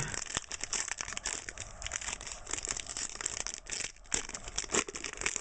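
Foil wrapper of a trading card pack crinkling and crackling in the hands as it is torn open, a dense run of small rustling crackles.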